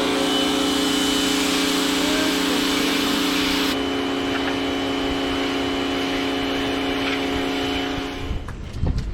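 Pressure washer running steadily, its motor hum under the hiss of the water jet; the spray hiss stops a little under four seconds in while the motor keeps running, and the machine sound ends near the end, followed by a few knocks.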